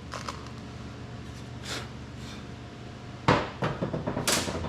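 Hand-tool work on a small screwed-on cover: light clicks and a scrape, then a sharp knock a little after three seconds followed by several quick clicks and a scraping rasp near the end, as a flathead screwdriver and small parts are handled.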